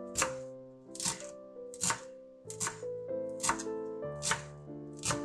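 Fiskars chef's knife chopping fresh dill on a bamboo cutting board: crisp chops a little under a second apart, with a quick double chop about halfway through. Background music with sustained keyboard tones plays underneath.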